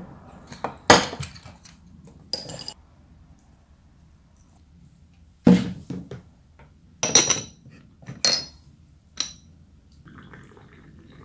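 Ceramic teapot, lid and cups clinking on a tea tray as tea is made: about seven separate sharp clinks, several with a brief high ring. Near the end there is a faint hiss of hot water being poured from the teapot.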